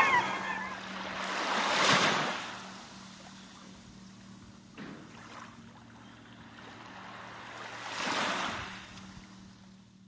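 Sea water washing in the shallows, swelling up about two seconds in and again near the end, over a faint steady low hum.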